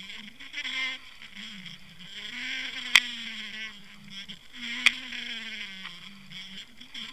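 Underwater sound picked up by a camera in its housing at depth: a steady, wavering low hum with hiss above it, broken by two sharp clicks about three and five seconds in.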